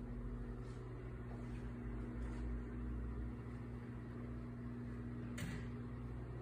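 Steady low electrical hum with a low rumble underneath, and a single short click about five seconds in.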